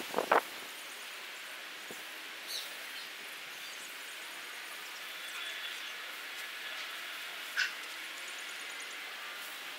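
A dog barks a few times at the very start, then a steady outdoor background hiss. Two short, faint calls come through later, one about two and a half seconds in and one about seven and a half seconds in.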